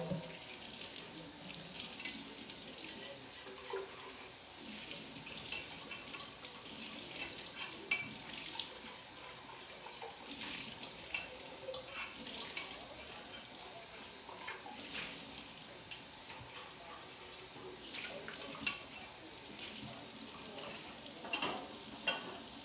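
Kitchen tap running into the sink during dishwashing, a steady hiss of water with scattered clinks and knocks of dishes being handled.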